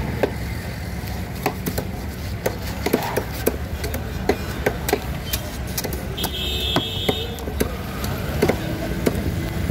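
A heavy knife chopping and cutting into a whole tuna on a wooden board, with sharp knocks coming irregularly a few times a second over a steady low hum of street traffic. A brief high beep sounds about six seconds in.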